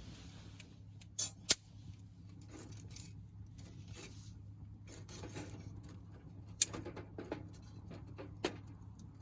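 Small wood campfire crackling, with four sharp pops breaking out of the softer crackle.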